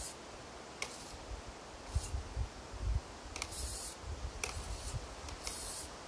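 The small servo of a drone's camera-tilt gimbal whirring in about six short, high-pitched bursts, each a fraction of a second long, as it tilts the camera up and down on command from the radio transmitter.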